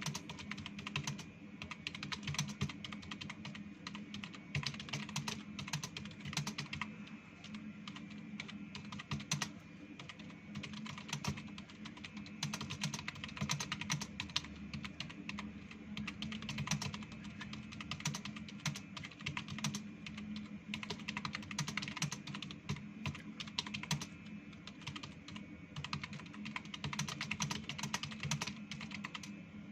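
Fast, continuous typing on a computer keyboard, a rapid run of key clicks without pause, during a timed typing-speed test.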